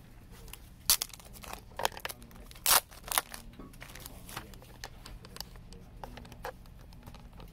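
Plastic wrapping on a mini-LP CD crinkling as it is handled: a few sharp crackles in the first three seconds or so, then fainter rustling.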